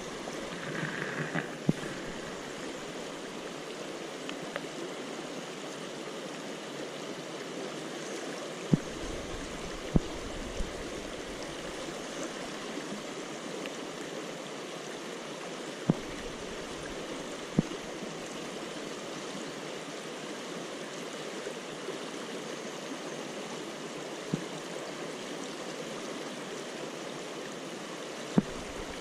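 Shallow river rapids running steadily over stones around the wader, with about half a dozen short, sharp knocks scattered through.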